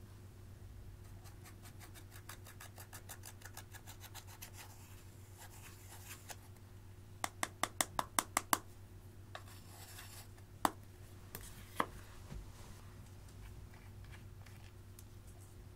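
Pressed eyeshadow being scraped and crumbled out of a plastic palette, a quick run of fine scratchy ticks. Then a burst of about eight sharp taps as the palette is knocked against a glass baking dish, and two more single clicks.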